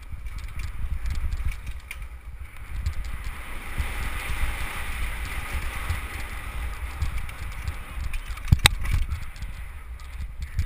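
Wind buffeting a helmet-mounted camera's microphone on a fast downhill mountain-bike run, with the bike's tyres on dirt and grass and the bike rattling over bumps. One sharp knock about three quarters of the way through.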